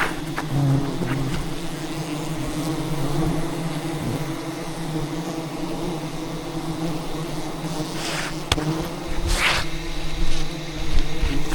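A swarm of giant honeybees defending their wild hive, buzzing steadily and densely around the microphone. Brief rushes of noise come near the end.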